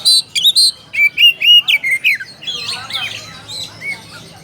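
Oriental magpie-robin (kacer) singing a fast, varied song of loud whistled notes and short repeated chirps, turning to softer, busier twittering after about two seconds: a song that calls out a rival.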